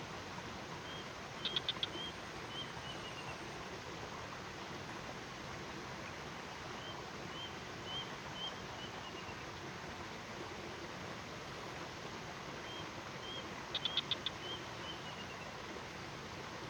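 A bird singing a repeated phrase: a few short high notes, a quick burst of four or five sharp notes, then a run of notes falling away. The phrase comes three times, about a second in, near the middle and near the end, over a steady hiss.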